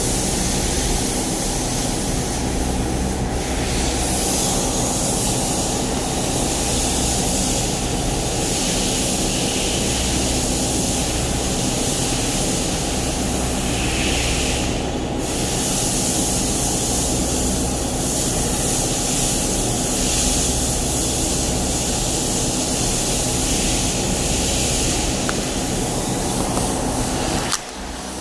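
Steady machine noise: an even rushing hiss over a low hum, dipping briefly near the end.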